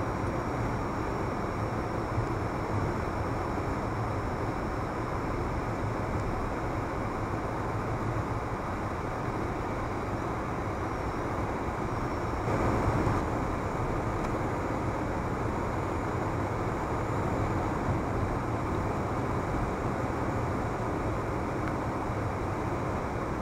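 Steady road and engine noise of a car driving at highway speed, heard from inside the cabin, with a brief louder swell about halfway through.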